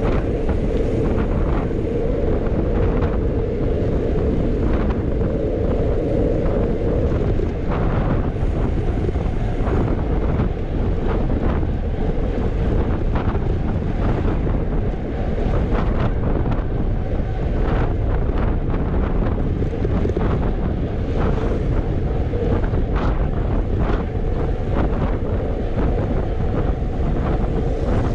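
Loud, steady wind buffeting the microphone of a camera riding along on a moving bicycle, with a constant low hum underneath and scattered light ticks and knocks.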